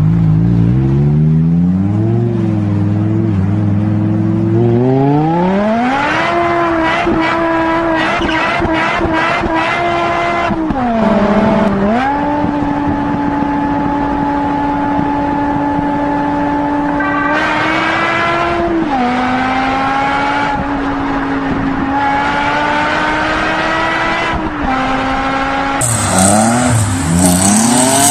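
A car engine revs hard, its pitch climbing steadily for about six seconds, then holds at high revs with a steady high pitch. The pitch drops twice, about eleven and eighteen seconds in, each time settling a little lower. Near the end it gives way to another car revving with its tyres squealing as it slides.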